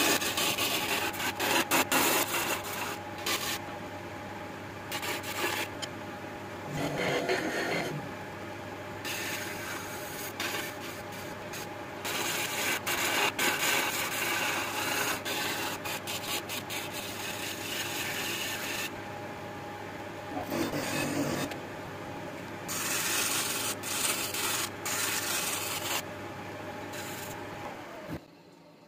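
Wood lathe running with a steady motor hum while a hand-held turning chisel shaves the spinning jackfruit-wood vase blank. The cutting comes as a scraping, rasping noise in several bursts between quieter spells. Near the end the lathe is switched off and the hum stops.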